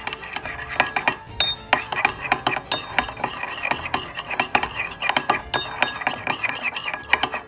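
Metal spoon stirring briskly in a ceramic bowl, clinking and scraping against its sides and bottom in a fast run of strokes while mixing an olive-oil dressing. The stirring stops abruptly near the end.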